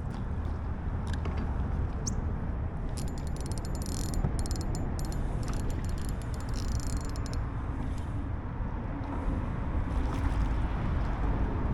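Fishing reel being cranked, rapid clicking in bursts between about three and seven seconds in, over a steady low rumble.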